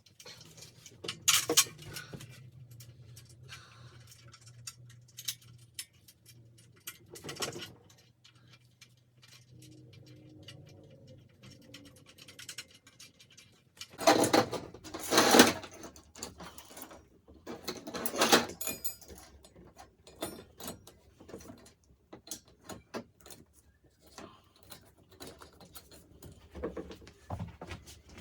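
Clicks, rattles and scraping of metal parts and tools being handled, with a few louder noisy bursts, the longest about fourteen to sixteen seconds in. No engine is running.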